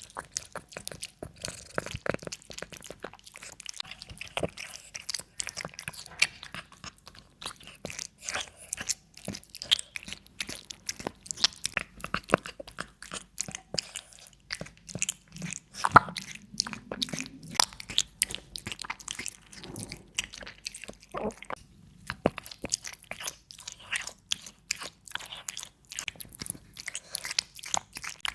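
A cat biting and chewing crunchy food, with a dense, irregular run of crunches and clicks.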